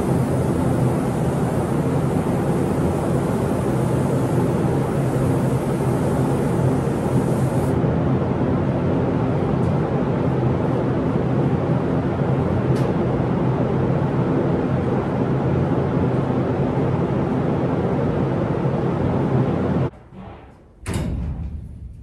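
Compressed-air paint spray gun hissing over a steady machinery drone; the hiss stops about a third of the way in. The drone cuts off suddenly near the end, and a single loud knock follows.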